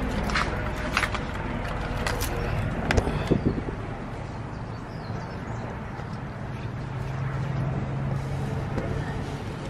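Clicks and knocks of a camera being handled and set down low on concrete, then a steady low hum.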